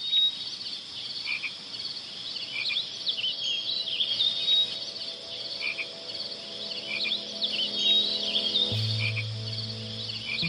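High, repeated chirping and trilling animal calls, like a frog and insect nature-sound background. Soft music notes join about two-thirds of the way in, with a low held note near the end.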